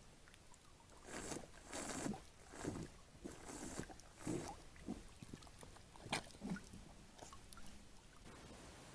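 Red deer stag drinking from a muddy pool: a run of irregular wet slurps and splashes that starts about a second in and dies away after about seven seconds.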